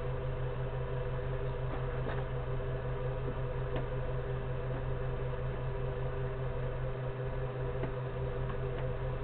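Steady low machine hum with a few fainter steady higher tones and occasional faint ticks, heard in a small enclosed room.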